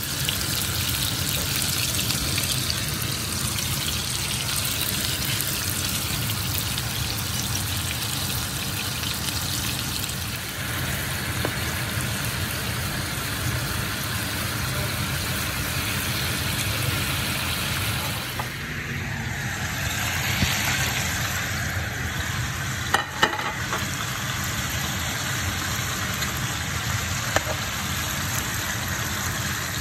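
Ground-beef patties sizzling steadily as they fry in oil in a nonstick frying pan, with a few light clicks about two-thirds of the way through.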